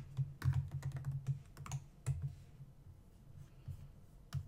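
Typing on a computer keyboard: a quick run of key clicks for about two seconds, then a few scattered clicks and one lone click near the end.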